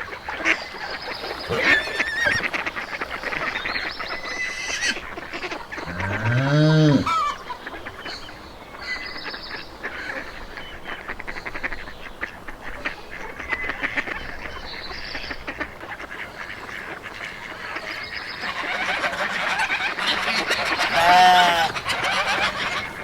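Farm fowl calling in a flock, with a loud call that rises and falls in pitch about seven seconds in and more such calls near the end.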